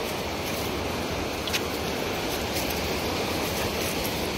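Lake waves washing onto the shore, a steady rushing noise.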